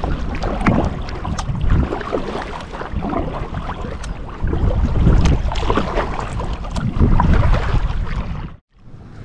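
Wind buffeting the microphone, with scattered light knocks and clicks. Near the end it cuts off abruptly and comes back quieter.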